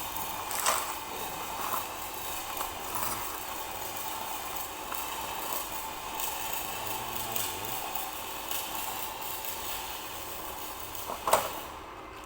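Stick-welding arc burning on an LB-52 low-hydrogen electrode, a steady crackling sizzle. Near the end there is a sharp snap and the arc stops.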